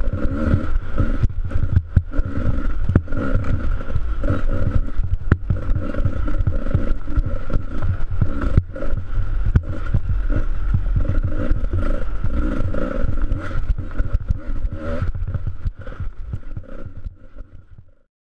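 Handlebar-camera sound of a dirt bike ridden along a rutted snow trail: the engine running under load with a heavy low rumble and frequent knocks and jolts from the bumpy track. The sound fades out over the last couple of seconds.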